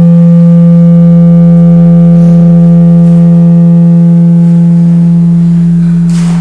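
A steady, low musical drone with a stack of overtones holds one pitch and begins to fade near the end. A sharp strike sounds just before the end.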